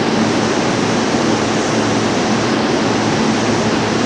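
Steady rushing noise with a low hum under it, from an E233 series 7000 electric commuter train standing at an underground platform with its doors open.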